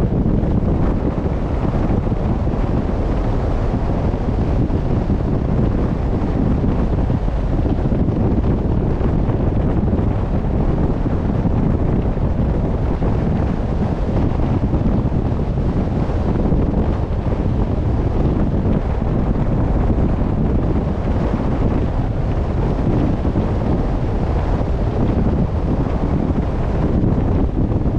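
Steady wind buffeting the microphone over the rush of open sea water, a low, even noise without a break.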